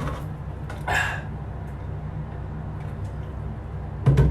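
A man breathing out hard once, about a second in, while suffering the burn of a superhot chili pepper, over a steady low hum. A short, louder low sound comes near the end.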